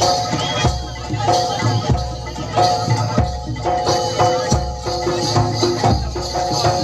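Live ensemble music: held, ringing pitched percussion notes over repeated deep drum strokes, with a steady high jingling shimmer.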